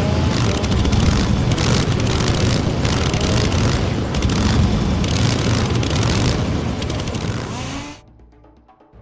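Chainsaw engine running loud, cutting off suddenly about eight seconds in.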